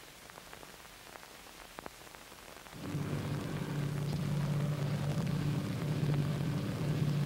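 Helicopter, a Piasecki H-21 'Flying Banana' tandem-rotor, running with a steady low drone that comes in about three seconds in after a near-quiet start.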